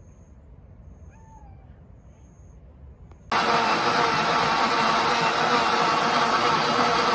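A faint cat's meow about a second in, then a Powell countertop blender switches on suddenly a little before the halfway point and runs steadily at speed, blending a thick purple fruit juice; the blender is much the loudest sound.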